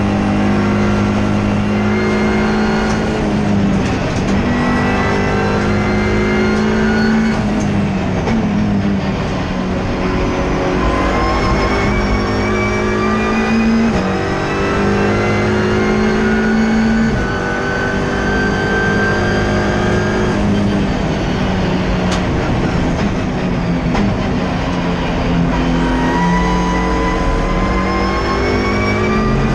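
Turbocharged Ford Fiesta EcoBoost race car engine at full throttle, heard from inside the stripped cabin: the pitch climbs through each gear and drops back at several upshifts.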